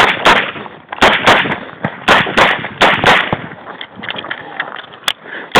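Smith & Wesson eight-shot revolver firing in quick pairs, each pair's shots about a third of a second apart. There are about nine sharp, loud shots, with a gap of almost two seconds before the last one.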